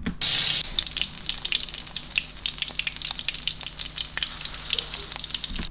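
Meat frying in hot oil in a pan: steady sizzling with many small crackles and pops, loudest in the first half second.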